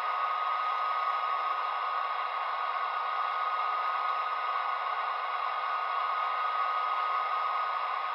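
A Bachmann HO GP35's TCS WOW Sound decoder playing its dynamic braking sound from the model's onboard speaker: a steady, quite loud rush of dynamic-brake grid-fan noise, with a high whine held on one pitch.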